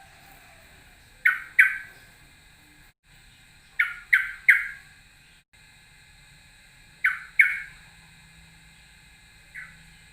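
A bird giving short, sharp calls that drop in pitch, in quick groups: two, then three, then two, then one faint call near the end.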